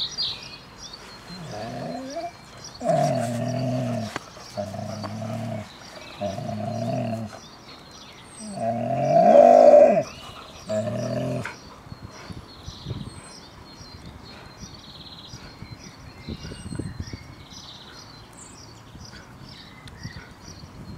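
Airedale Terriers growling in play while tugging at a toy: a series of about six growls, each lasting a second or so, the loudest about nine seconds in, then they die away in the second half.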